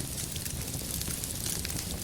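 Wood fire crackling steadily in a fireplace: many small, scattered pops over a low, even rumble.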